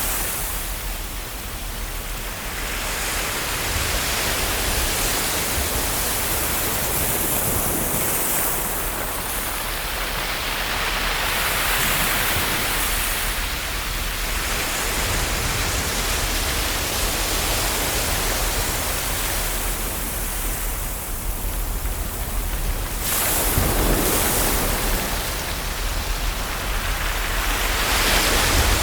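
Ocean waves breaking and washing onto a shore: a continuous rushing that swells and fades every several seconds.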